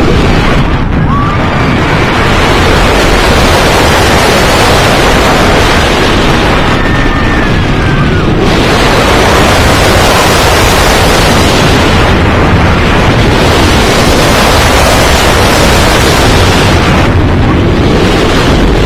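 Loud, steady wind rushing over the microphone, mixed with the roar of a B&M dive coaster's steel train running at speed through its track elements. The rush barely lets up, and the hiss thins for a moment every few seconds.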